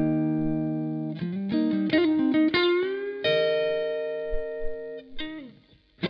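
Fender Stratocaster electric guitar played through a Marshall amp: a held chord rings for about a second, then a quick run of notes bends up into a long sustained note, followed by a few short notes that die away near the end.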